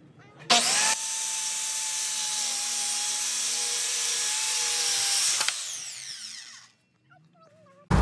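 Corded circular saw starting up about half a second in and cutting through a sheet of plywood, running at steady speed for about five seconds, then switched off and spinning down to a stop.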